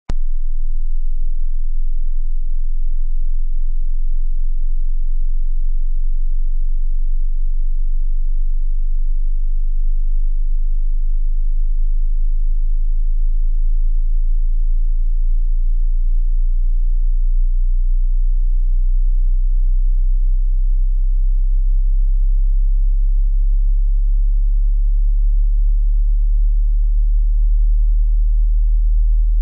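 Hearing-test pure sine tone at a very low pitch, around 50 Hz or below, held steady and loud and growing a little stronger toward the end.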